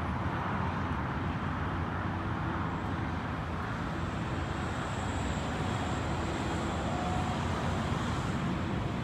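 Steady vehicle noise: a continuous low rumble of engines and road traffic, even throughout with no sudden sounds.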